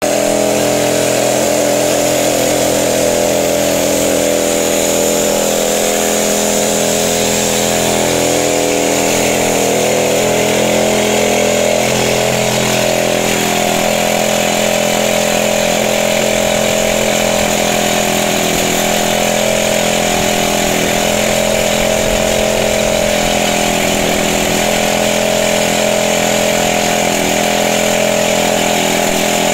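Excavator-mounted rock drill rig drilling a hole in the ground, running loud and steady throughout, with air blowing dust out of the hole.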